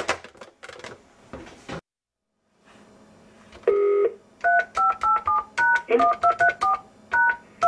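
Telephone touch-tone (DTMF) keypad presses: a quick run of short two-note key tones, about three a second, through the second half, after a short beep. Before that come a few clicks and crackle on the line, then a moment of dead silence.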